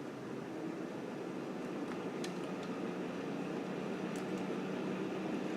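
Steady fan hum from a Fluke 5200A AC calibrator running just after power-up, with a few faint ticks.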